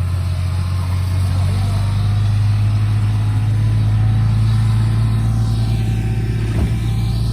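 Small farm buggy's engine running steadily at a constant speed, with a slight rise in pitch about a second and a half in.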